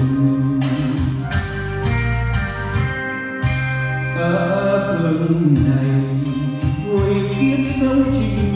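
Karaoke backing music with a steady beat, and a man singing along into a handheld microphone.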